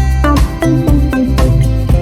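Background music: upbeat track with plucked guitar over a steady bass beat.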